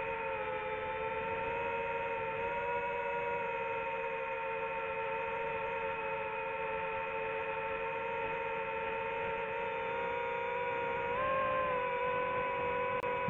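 DJI FPV drone's motors and propellers humming steadily in flight: several steady tones that rise slightly together in pitch about eleven seconds in.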